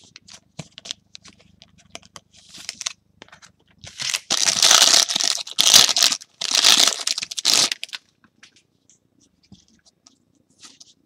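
A foil trading-card pack being torn open and crinkled, in a run of loud rips between about four and eight seconds in, with light clicks of cards and wrapper being handled before and after.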